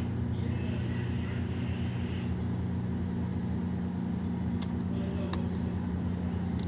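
A steady low mechanical hum, with a few light sharp clicks near the end as a flat screwdriver works a mini coaxial cable connector onto a phone's board.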